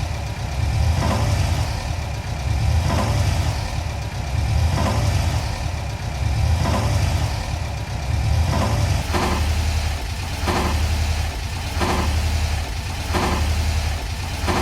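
1994 VW Kombi's air-cooled engine running while the van reverses, with a regular pulsing clatter about every two seconds that comes quicker, about every second and a half, in the last few seconds. The strange noise started after the carburettor and engine mounts were replaced, and the owners liken it to sheet metal banging on sheet metal.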